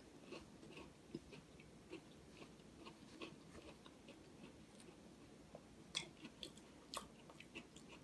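Faint chewing of a crispy wafer bar with peanut butter cream, with a few sharper crunches in the second half.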